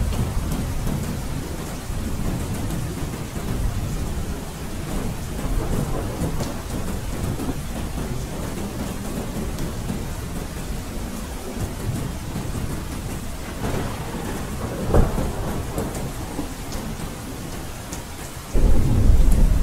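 Steady rain with rolling thunder, a continuous low rumble under the patter of the rain. A short, sharper peak comes about three-quarters of the way through, and a louder rumble of thunder sets in near the end.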